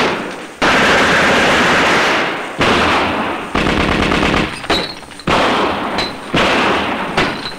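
Thompson submachine-gun fire in several long, rapid bursts, each a second or two long, with brief breaks between them.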